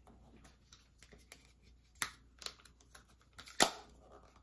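Small clicks and taps from makeup items being handled while powder is applied, the sharpest tap about three and a half seconds in.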